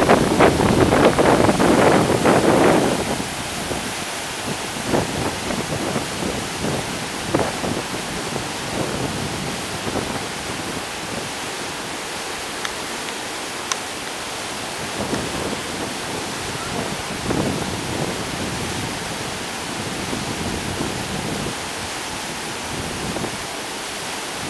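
Whitewater river rapids rushing steadily, louder and rougher for about the first three seconds, then an even rush with occasional splashy surges.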